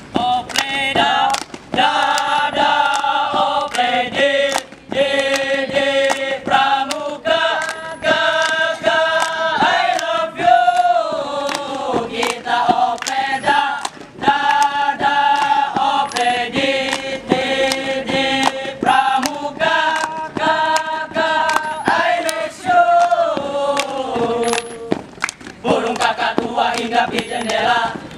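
A group of boys singing a scout chant in unison, holding long notes that step up and down in pitch, over steady hand claps.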